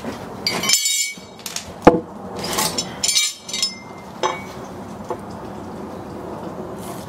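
Light clinks and knocks of a marking tool against a 6x6 pressure-treated wood post, with a few short scraping strokes as a cut line is marked across it; the sharpest knock comes about two seconds in.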